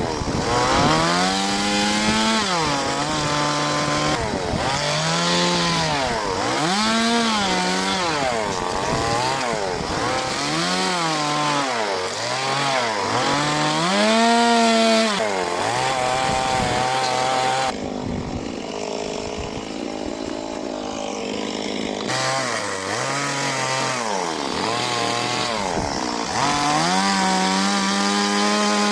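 Chainsaw engine revving up and dropping back toward idle over and over, about a dozen short bursts, as the saw cuts into wood. For a few seconds past the middle it falls to a quieter, duller idle before the revving starts again.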